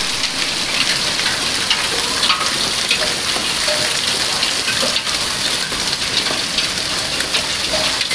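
Steady rain falling: a dense crackle of small drop ticks over an even hiss.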